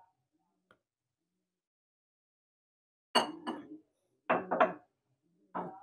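Metal spoon clinking and scraping against a ceramic bowl while stirring flour batter: a sharp clink about three seconds in, then a few short scraping strokes.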